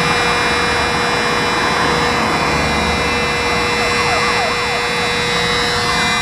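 Fire truck siren over the noise of the running fire apparatus, with a steady tone throughout and a few short falling siren sweeps about four seconds in.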